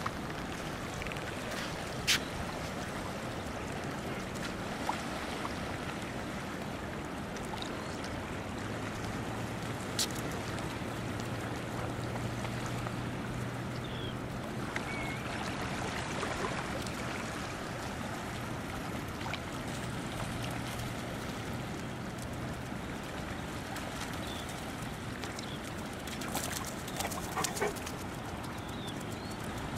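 Outdoor beach ambience: steady wind and light water noise along a calm, shallow shore. A low steady hum comes in about nine seconds in and fades after about twenty-three seconds, and a few sharp clicks sound now and then, in a short cluster near the end.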